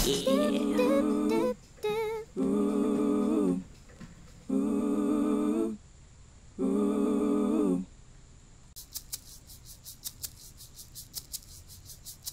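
A voice humming a short run of held notes with a wavering pitch, each note lasting about a second, with brief gaps between them. Those end about eight seconds in; from about nine seconds a faint, fast run of clicks follows.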